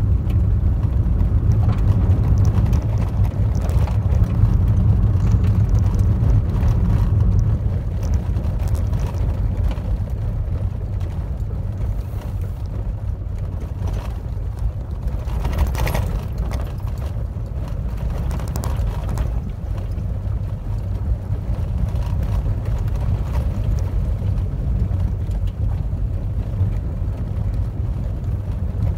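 A car driving on an unpaved gravel road, heard from inside the cabin: a steady low rumble of tyres and road noise, with a few sharper ticks and knocks from gravel about halfway through.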